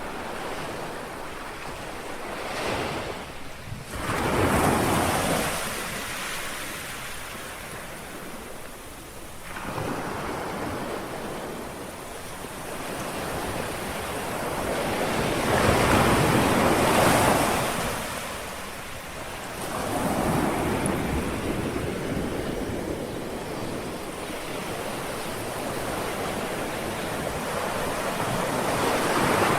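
Small sea waves lapping and washing onto a shore, one after another every few seconds, each swelling and fading, the loudest a little past halfway.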